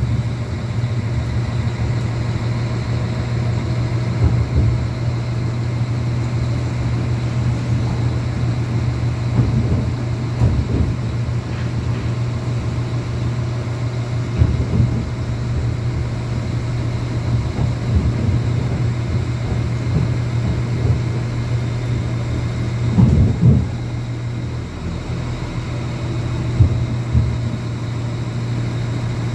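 Passenger train heard from inside the carriage: a steady low running hum with irregular knocks and thumps from the wheels on the track. The train is pulling into a station stop near the end.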